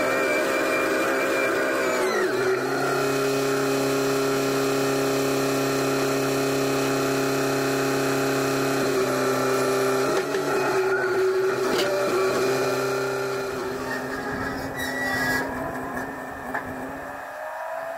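SkyTrak telehandler engine running under load; its revs drop about two seconds in and it then runs steady at a lower speed, with a few knocks about ten to twelve seconds in as the forks set the steel down. It fades somewhat near the end.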